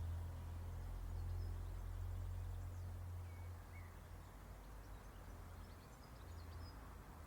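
Faint outdoor ambience: a steady low rumble that eases about halfway through, with scattered faint bird chirps and two short calls about three seconds in.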